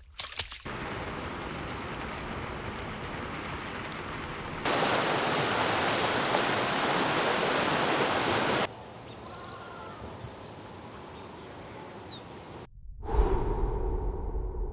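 A run of nature ambience sound effects: a steady rushing hiss like wind or water, which jumps louder and brighter for about four seconds, then drops to a quieter hiss with a few faint bird chirps. After a brief gap near the end, an owl starts hooting.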